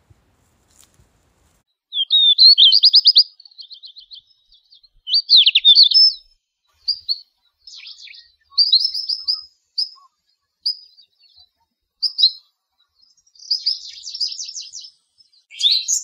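A small songbird singing, starting about two seconds in: a series of short, high phrases of quick repeated notes with pauses between them.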